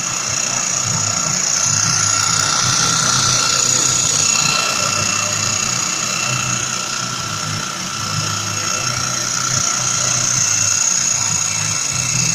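Homemade plywood-framed mini bandsaw running steadily: a high hiss and whine over a low, pulsing hum.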